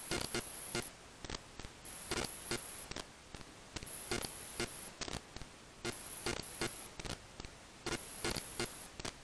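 Background music with a steady beat: a short electronic loop with a high held tone and evenly spaced clicks, repeating about every two seconds.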